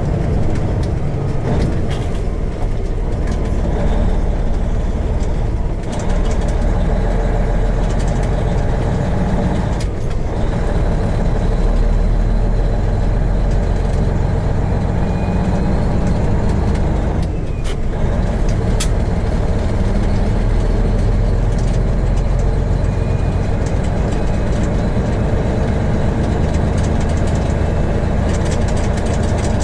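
Peterbilt semi truck's diesel engine running under load as the truck pulls away and drives, heard from inside the cab, with a deep steady drone. The sound briefly drops out about 6, 10 and 17 seconds in, as gears are changed.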